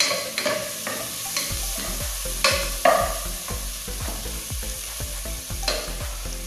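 Spatula stirring and scraping chopped ginger, onion and garlic sizzling in oil in a pot, in irregular strokes over a steady frying hiss.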